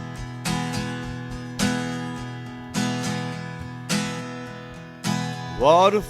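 Acoustic guitar strummed, one chord struck about once a second and left ringing between strokes. Near the end a voice slides up into the first sung note.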